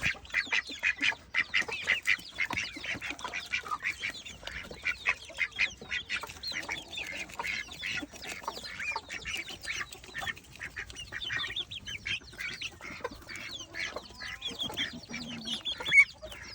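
Domestic geese and chickens calling together in a steady stream of short, overlapping calls, several a second, with one sharp louder call near the end.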